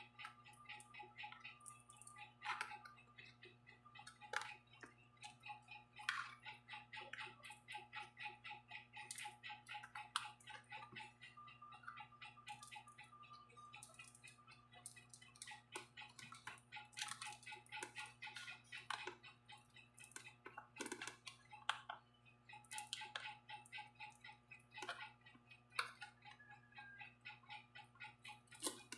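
Faint, irregular small clicks and taps over a steady low hum.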